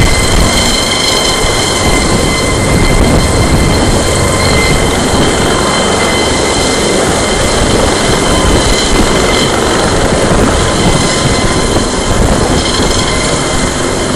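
Cargo helicopter hovering low overhead with a load slung on a long line: loud, steady rotor and engine noise with a steady high whine running through it.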